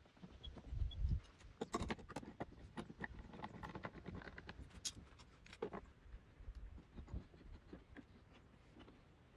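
Steel bar clamps being set against wooden boards and screwed tight: irregular light clicks and knocks of metal on wood, with a few low thumps near the start.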